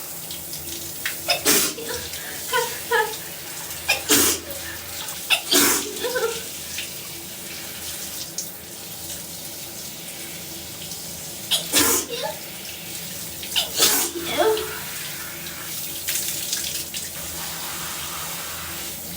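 A woman sneezing in the shower, about five sharp sneezes in two clusters, with short sounds of her voice after some of them, over the steady hiss of running shower water. Soap got into her nose and the hot steam set off the sneezing.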